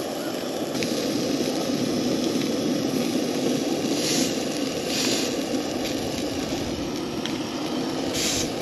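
Fish frying in hot oil: a steady crackling sizzle, with brief louder hisses about four, five and eight seconds in.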